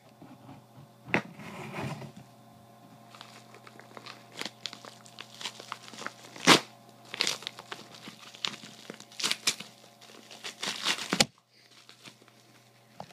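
Padded bubble mailer being torn open by hand: paper and plastic crinkling and tearing in irregular snaps, loudest about six and a half seconds in, stopping shortly before the end.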